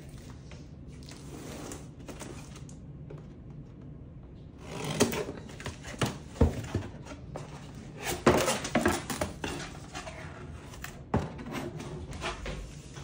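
A cardboard box being opened: a knife slitting the packing tape, then the flaps pulled open and folded back, with rustling, scraping and several sharp cardboard knocks, the loudest in the middle and one more knock near the end.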